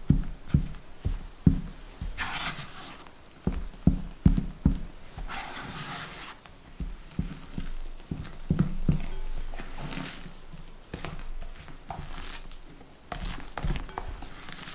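A silicone spatula folding sifted flour into batter in a glass bowl: irregular soft knocks of the spatula against the glass, broken by two longer scraping swishes through the mixture.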